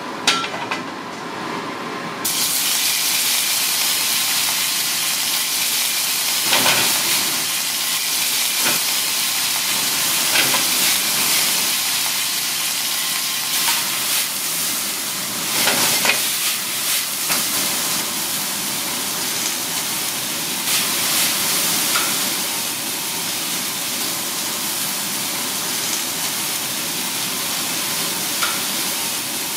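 Food sizzling as it fries: a steady hiss that starts suddenly about two seconds in, with a few clinks of utensils over it.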